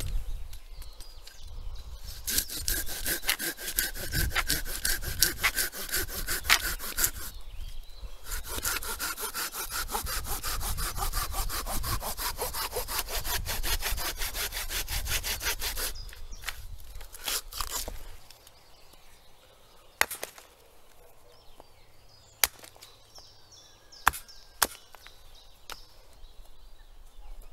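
Hand saw cutting through wood in two spells of rapid, even strokes, with a short break about seven seconds in; the sawing stops about sixteen seconds in. After it come a few sharp knocks.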